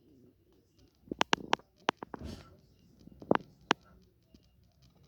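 Sharp clicks and taps from small objects being handled, a quick cluster of four a little after a second in, then single clicks around two seconds and twice more past three seconds, with a brief rustle between.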